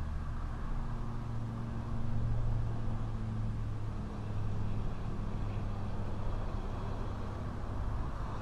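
Low, steady motor or engine hum whose pitch shifts up slightly about four seconds in, over a background rush of noise.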